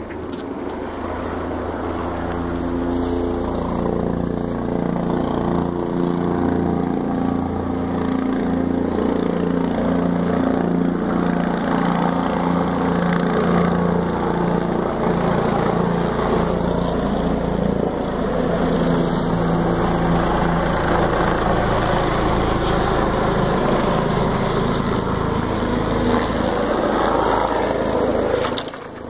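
Helicopter flying low overhead, a steady engine and rotor drone that builds over the first few seconds and then holds.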